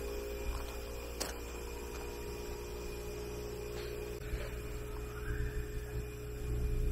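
A steady low hum with a few held steady tones and a faint click about a second in.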